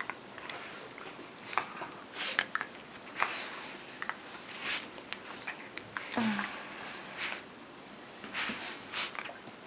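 Dogs snuffling and snorting as they nose and mouth at a person and her clothing, in scattered short bursts with rustling, and one short low grunt about six seconds in.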